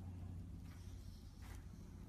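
Faint steady low hum of room tone, with a soft high-pitched sound and a light click about halfway through.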